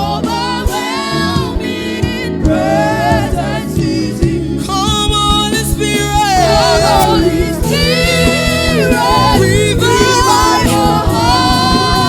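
Gospel worship song: voices singing long, wavering held notes over a band accompaniment.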